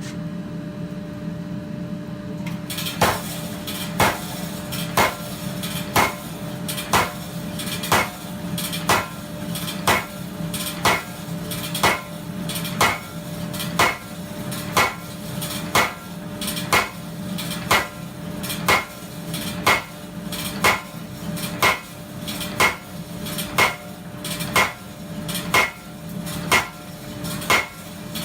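Custom-built blacksmith power hammer striking a hot 30 mm by 10 mm steel bar to draw it down, about one blow a second, starting about three seconds in, over a steady motor hum.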